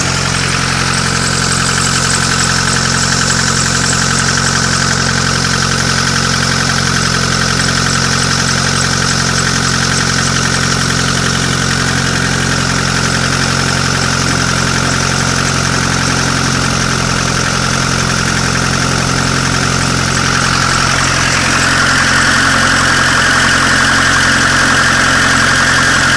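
Vehicle engine idling steadily with a knock whose cause the owner is asking about. About two-thirds of the way through, a higher-pitched part of the sound grows a little louder.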